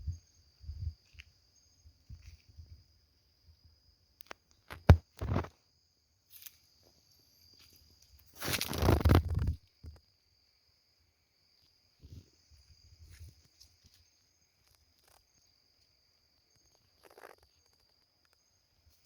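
Steady high insect trilling, crickets, with scattered soft thumps and rustles of footsteps on dry ground. A louder rustling crunch lasts about a second midway.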